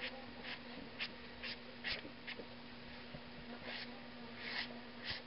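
Felt-tip marker scratching and squeaking on drawing paper in short quick strokes. There are about five in the first couple of seconds, a pause, then a few more near the end, over a faint steady hum.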